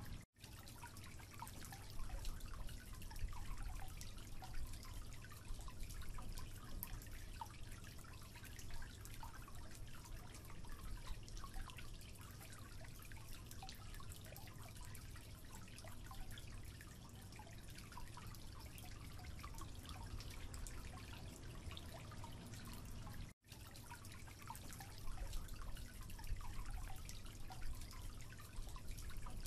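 Water dripping from a leaking tap into a sink: many small drips and splashes over a low, steady rumble. The sound cuts out completely for an instant twice, just after the start and about three quarters of the way in.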